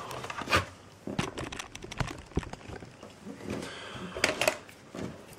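Knife blade clicking and scraping against the hard plastic case of an external hard drive enclosure as it is pried at the seam. The clicks are irregular, with a sharp one just after the start and a loud pair about four seconds in.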